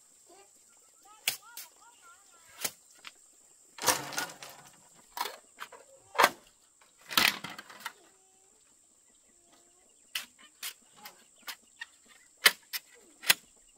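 Irregular sharp knocks and clacks, about a dozen, with two longer rustling scrapes a few seconds in.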